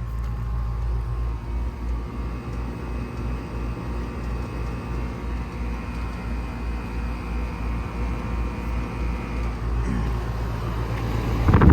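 Lennox Elite central air conditioner's outdoor condensing unit running steadily: a Copeland scroll compressor humming under the condenser fan. A louder rush of air or wind comes in near the end.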